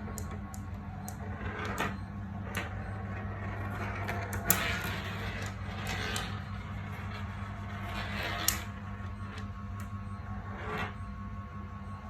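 Marbles rolling and clattering down a toy marble run: a scatter of clicks, knocks and short rattles, the sharpest about four and a half and eight and a half seconds in, over a steady low hum.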